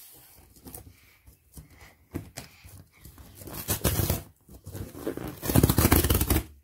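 Perforated tear strip being ripped open along a corrugated cardboard box by hand, in several pulls; the longest and loudest rip comes near the end.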